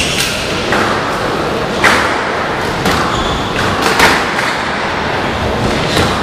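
A squash rally: the rubber ball is struck by rackets and hits the court walls as sharp knocks, one every second or two, over a steady hall noise.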